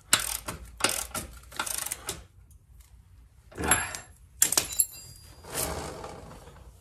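Socket ratchet clicking as a motorcycle's rear axle nut is nipped up, then sharp metal clinks with a short ring about four and a half seconds in. Near the end the rear wheel is spun by hand, whirring as it slows.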